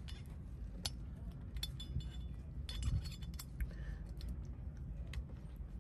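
Scattered light metallic clicks and clinks of a small spring and metal mount parts being handled, as the spring is opened up and worked back into the mount's holder. The clicks come irregularly, some with a brief high ring, over a steady low rumble.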